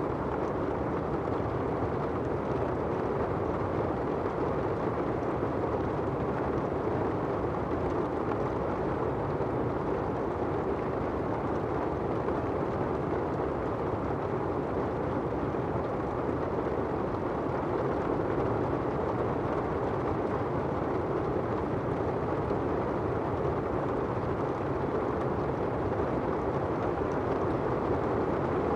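Steady rain falling on an umbrella, an even dull rush with no single drops standing out.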